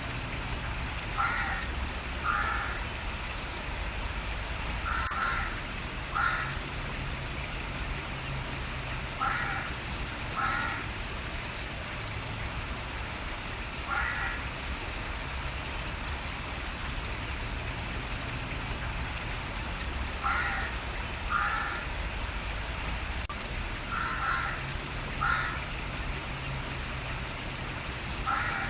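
A bird calling in pairs of short calls about a second apart, the pairs repeating every few seconds, over a steady hiss of running water and a low steady rumble.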